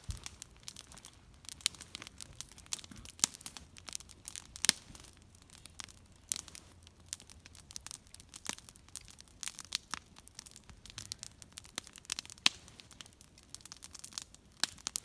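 Wood campfire burning and crackling: irregular sharp pops and snaps, a few of them louder, over a low steady hiss of flame.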